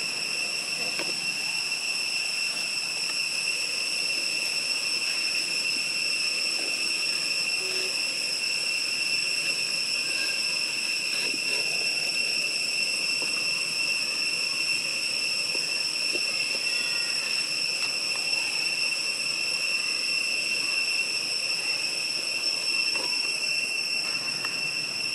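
Cicadas droning in one unbroken high-pitched tone, with a few faint short chirps now and then.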